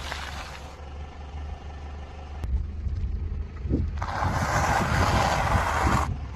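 Car tyre rolling over and crushing dry food: crackling crunch in the first second, a quieter stretch, then about two seconds of dense crunching from dry instant noodles that cuts off abruptly. The car's low rumble runs underneath.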